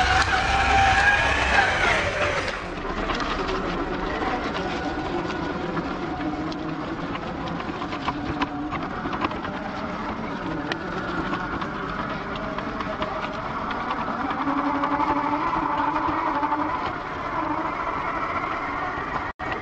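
Traxxas TRX4 RC crawler's brushed electric motor and geared drivetrain whining as it crawls over rough ground, the pitch rising and falling with the throttle, with scattered sharp clicks. The sound is louder and fuller for the first two seconds or so, then settles lower, and drops out for a moment near the end.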